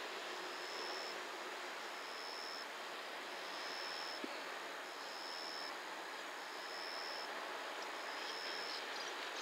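Steady, distant vehicle rumble and hiss with no rise or fall. Above it, a thin high-pitched tone pulses about once every second and a bit, around eight times.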